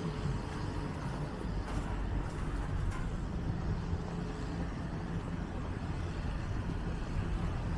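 Outdoor street noise: road traffic running, with a low, uneven wind rumble on the microphone.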